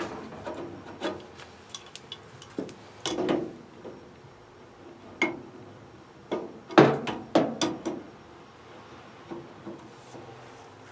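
Irregular metallic clinks, knocks and short scrapes of a hand tool working a hose fitting on a boiler drain tight to stop it dripping. The knocks come loose and uneven, with a busier cluster a little past the middle.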